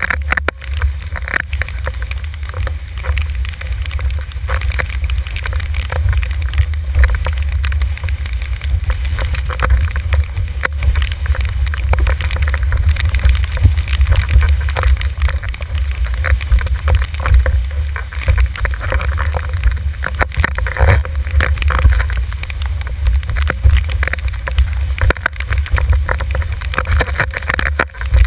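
Wind buffeting the microphone of a boom-mounted action camera on a windsurfer planing at speed, over the rushing hiss of water and frequent slaps of the board hitting chop.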